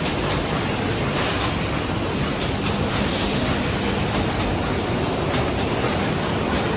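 Cornetto production and carton-packing line machinery running: a steady wash of motor and conveyor noise with a low hum, broken every second or so by sharp clicks, often in pairs, from the carton-handling mechanisms.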